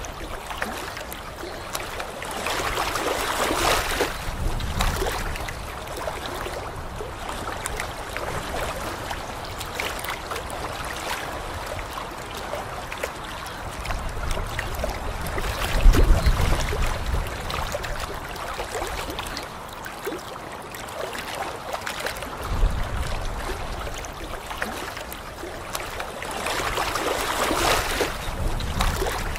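Small waves lapping and washing on a pebble lakeshore, a steady watery wash with a louder low rumble a little past halfway.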